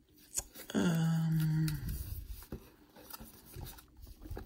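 A man's drawn-out 'hmm', dropping in pitch and then held for about a second, amid a few light taps and clicks from handling a watch's cardboard box as he tries to work out how it opens.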